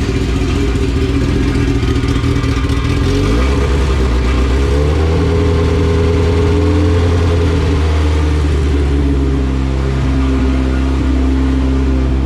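Honda B18-based LS/VTEC four-cylinder engine running on its first warm-up cycle; the engine speed rises smoothly about 3 to 5 seconds in, holds, then eases slightly near the end. It is idling a little lean.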